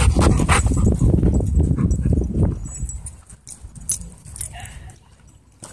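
Dogs growling and scuffling as they wrestle close by, loud for the first half and then dropping away as they move off.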